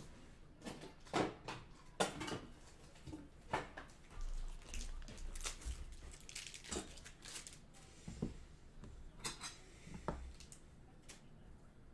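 Scattered clicks, taps and clatter of hard plastic with some rustling, a dozen or so irregular knocks, as a magnetic one-touch card holder is fetched and handled for a freshly pulled card.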